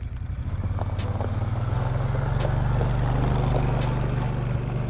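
Side-by-side utility vehicle's engine running as it drives off along a gravel track: a steady low hum that grows louder over the first couple of seconds, then eases off slightly near the end.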